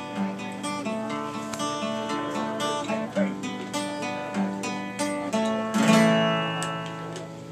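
Acoustic guitar strumming chords in an instrumental break, with no singing. A loud chord near the end is left to ring out and fade.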